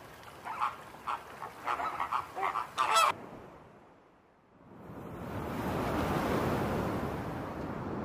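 A flock of flamingos honking, many short overlapping calls that stop about three seconds in. About a second later, waves break and wash up the beach in a steady surf.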